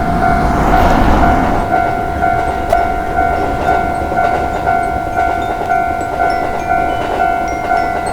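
Japanese railroad crossing warning bell ringing a steady 'kan-kan', about two strikes a second, as a train rumbles past with a swell of rushing noise about a second in.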